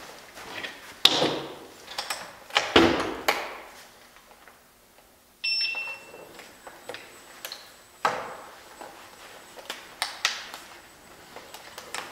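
Handling noises of a small electric unicycle being lifted, turned over and set back down on a workbench: scattered knocks and clunks with a rustle of clothing. About five and a half seconds in, a short electronic beep sounds.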